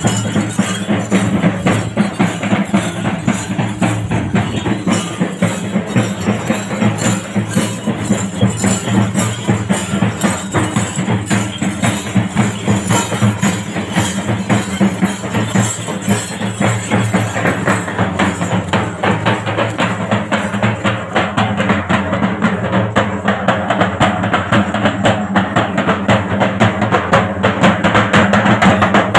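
Fast, dense drumming with jingling percussion, played continuously as accompaniment to a Poothan and Thira folk dance procession.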